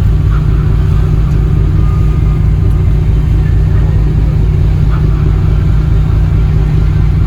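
Loud, steady low rumble of an icebreaker's engine and hull vibration, with an even fast pulsing and no let-up.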